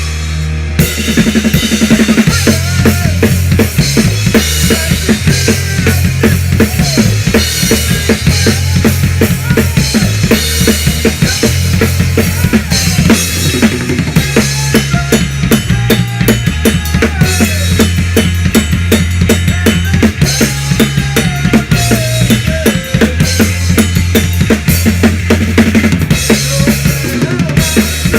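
A rock band playing loudly at rehearsal, the drum kit heard up close with fast, steady kick and snare hits over held low bass notes that change in steps.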